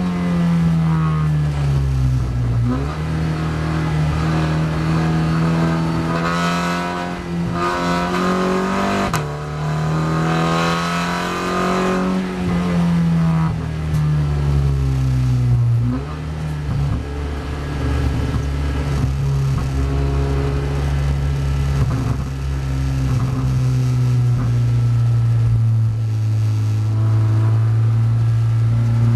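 SEAT Leon Supercopa race car's engine heard from inside the cockpit, revving up and dropping back several times in the first half, with a sudden jump in pitch about nine seconds in, then holding a lower, fairly steady note.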